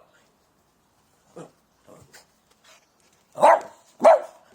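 A dog barking: a few faint short sounds, then two loud barks about half a second apart near the end.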